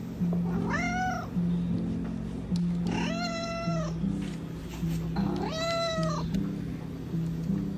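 Domestic cat meowing three times, begging for its food; each meow rises and then falls in pitch, about two and a half seconds apart. Soft music plays underneath.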